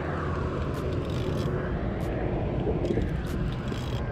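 Wind buffeting the camera microphone as a steady low rumble, with a few light, sharp clicks from the spinning reel while a hooked fish is being fought.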